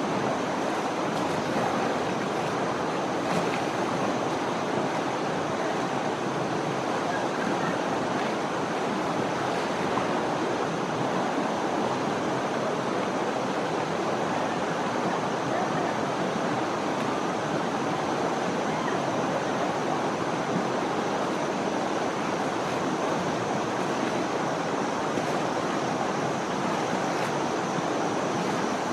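Steady rush of flowing river water, with elephants splashing in it now and then.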